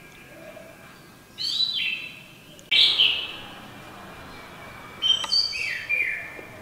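A baby monkey's high-pitched calls: three loud sliding squeals, about a second and a half in, near three seconds and around five seconds in.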